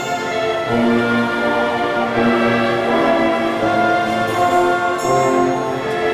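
A school orchestra of violins, cellos, double basses and brass playing a melody in sustained notes that change about every half second.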